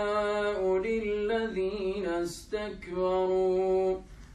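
A man's solo, unaccompanied Quran recitation in melodic tajweed style. He holds long sustained notes with ornamented turns of pitch, takes a quick breath midway, and stops near the end.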